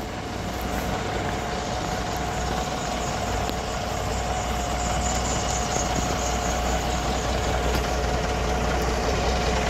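City bus diesel engine idling at a stop: a steady low rumble with a steady whine above it, growing gradually louder as the bus is neared.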